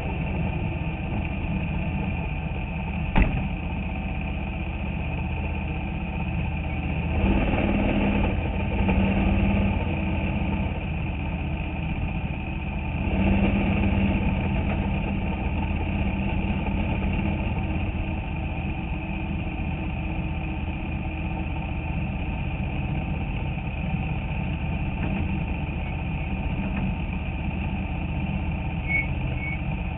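Bandolero race car's 570 cc Briggs & Stratton engine heard from inside the cockpit, running at low speed as the car rolls slowly. The throttle is opened twice, about seven and thirteen seconds in, and there is one sharp knock about three seconds in.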